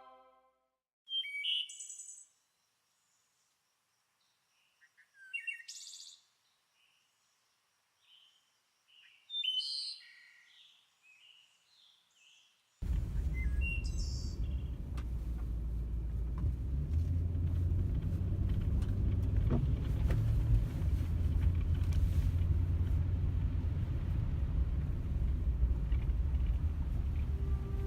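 A few short, high bird chirps, separated by dead silence. About halfway through, a steady low rumble of outdoor noise takes over.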